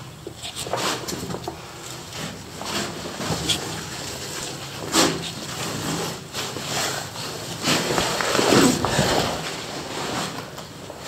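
A caver moving through a narrow cave passage: irregular scraping and shuffling against rock, coming in uneven bursts, with a louder stretch a few seconds before the end.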